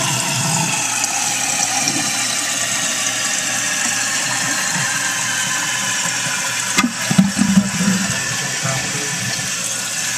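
Water running in a toilet tank with a newly installed fill valve, a steady hiss as the tank refills. A sharp knock about seven seconds in is followed by a brief low gurgle.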